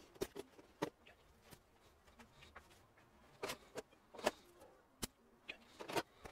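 Faint, irregular light clicks and taps, about a dozen spread over several seconds, from small tools and test probes being handled at an electronics repair bench.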